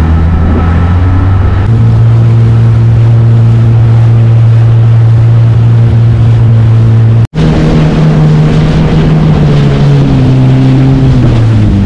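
Yamaha jet ski engine running at speed with water rushing under the hull. The engine pitch steps up about two seconds in. The sound cuts out for an instant near the middle, then the engine speed rises and falls as the throttle changes.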